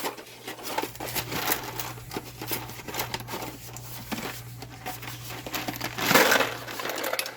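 Dry rigatoni pasta being shaken out of its box into a crock pot: a run of light rattling clicks and packaging crinkle, with a louder rush of pasta about six seconds in.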